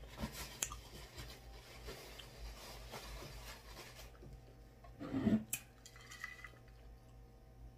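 Soft rustling and rubbing of a paper napkin being used to wipe hands and mouth, with light clicks. About five seconds in comes a short hummed voice sound and a click.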